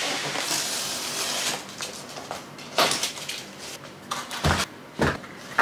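Cardboard printer box being opened and unpacked by hand: rustling and scraping of cardboard and packing material, then a few short knocks in the second half.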